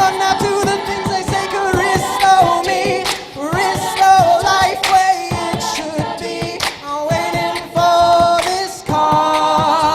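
An a cappella group singing in close harmony, with sharp vocal-percussion hits keeping a steady beat.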